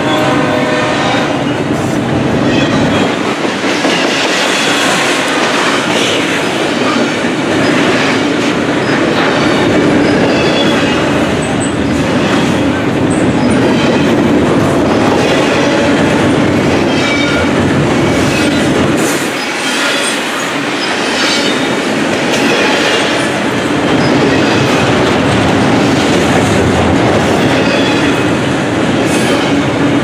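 Double-stack intermodal freight train rolling past close by: the steady rumble and rattle of container well cars, with the clickety-clack of wheels over rail joints and now and then a short high wheel squeal. A locomotive horn chord trails off in the first second.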